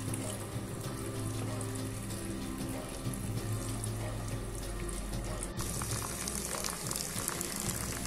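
Water from a mini pump running down a thin tube and splashing steadily into a shallow dish of pebbles in a tabletop fountain. About five and a half seconds in, the sound changes abruptly and the splash turns brighter and hissier.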